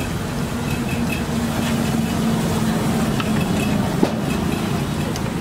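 Steel spatula rapidly chopping and scraping egg mixture on a large iron tawa, a dense rattling clatter over a steady low hum that fades about three seconds in, with one sharp click about four seconds in.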